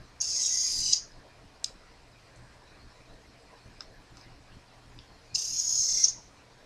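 Small hobby servo motor whirring twice, high-pitched, each run lasting under a second and about five seconds apart, as it swings one way and then back. A single light click sounds between the two runs.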